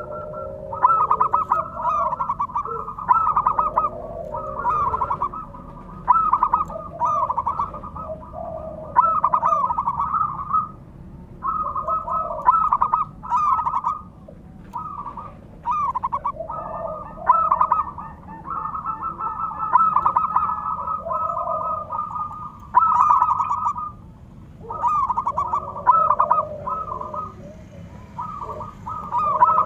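Zebra doves (perkutut) cooing: phrase after phrase of quick staccato coo notes, each phrase a second or two long, following one another with only short gaps.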